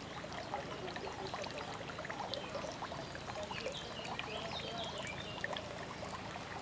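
Small garden waterfall splashing and trickling steadily into a pond. A short run of high chirps comes in about halfway through.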